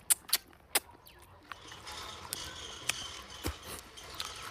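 A person eating, chewing with sharp mouth clicks and smacks: three in the first second, then softer, scattered ones.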